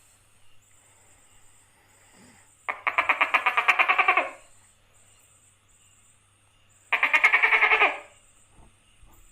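Tokay gecko calling: two rapid rattling trills of quick pulses, the first about three seconds in and lasting over a second, the second about seven seconds in and a little shorter.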